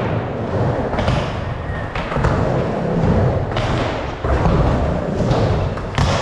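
Skateboard riding a mini ramp: the wheels rolling with a steady low rumble, broken by several sharp clacks and thuds as the board hits the coping at the top of the ramp.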